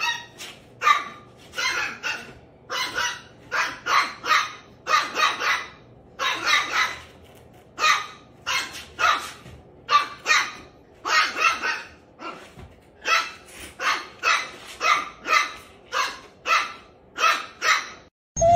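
A dog barking over and over in short, sharp barks that come in quick runs of two or three.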